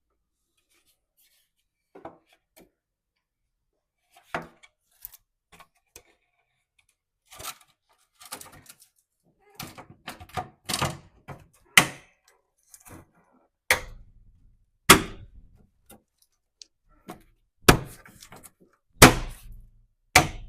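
A series of sharp knocks, clicks and thunks from parts or tools being handled, sparse at first and then more frequent, with several loud single thunks toward the end.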